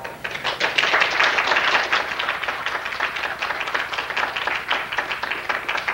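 A congregation applauding: many people clapping together in a steady, dense patter.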